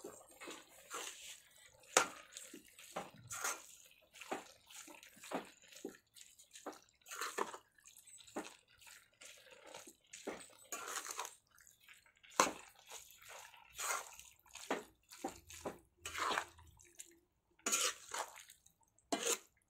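Boiled oysters being mixed with spice powders and salt in a metal pot, by hand and then with a metal spatula: irregular short stirring and scraping strokes.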